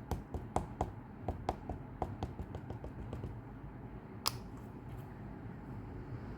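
Quick light taps, about three or four a second, of a rubber stamp being dabbed onto an ink pad to ink it, stopping about three seconds in. One sharper click follows about a second later.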